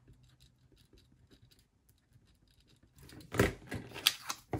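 Faint scratching of a pen writing on a sticky note, then about three seconds in, louder crinkling and rustling of paper as the sticky note is picked up and handled.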